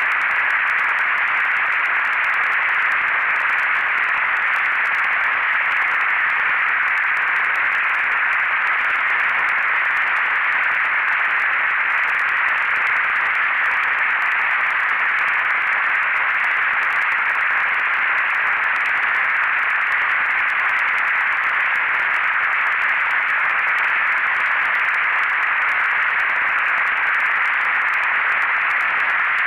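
Computer-synthesized noise from SuperCollider: a steady, even hiss centred in the middle range, like radio static, that does not change.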